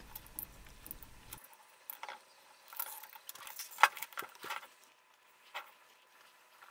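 Light clicks and rattles of an electric motor's terminal-box lid being lifted off and handled, with one sharper knock a little under four seconds in.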